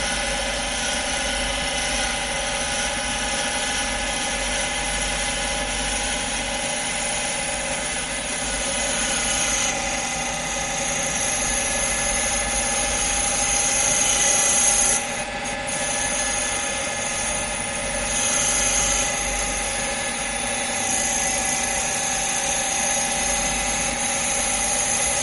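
Automatic wood-turning lathe spinning a wooden blank while its cutter shapes prayer beads: a steady machine whine with several held tones under a high hiss of cutting. The hiss and level dip briefly about fifteen seconds in.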